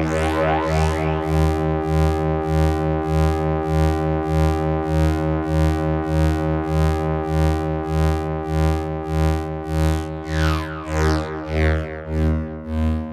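Modular synth drone from a self-oscillating filter at maximum resonance, run through a phaser and delay. A low pitched tone with many steady overtones pulses evenly a few times a second, with swirling phaser sweeps near the start and again about ten seconds in.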